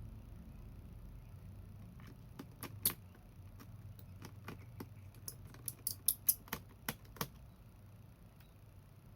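A string of about a dozen light, sharp clicks and taps over roughly five seconds, bunched near the middle. They come from small tools and parts being handled on an opened laptop.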